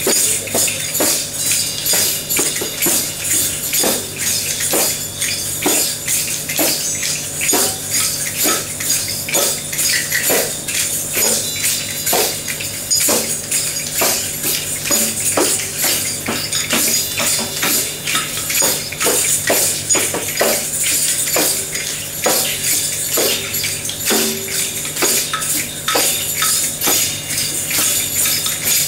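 Many small hand percussion instruments, shakers and jingling tambourine-type instruments among them, shaken and struck together by a group: a dense, irregular jingling and rattling with no steady beat.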